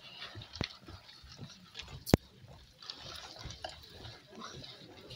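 Faint irregular rustling and small clicks, with one sharp click about two seconds in.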